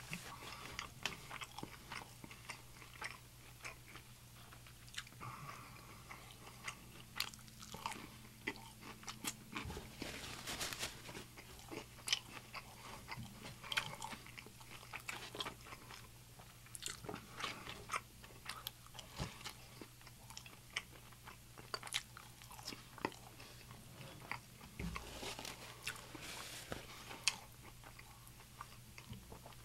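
Close-miked chewing of crispy breaded fried chicken: moist chewing broken by irregular crunches and mouth clicks, several a second at times, over a faint steady low hum.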